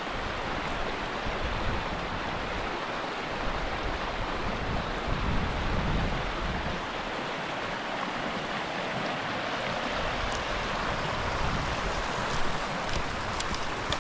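Wind gusting over the microphone in uneven low buffets, over a steady rushing hiss, with a few sharp ticks near the end.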